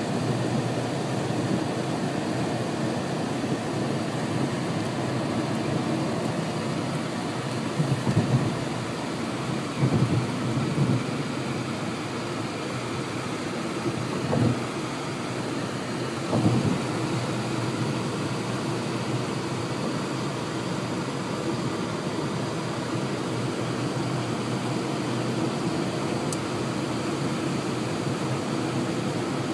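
Steady low rumble of a car driving, heard from inside the cabin, with several louder thumps around the middle.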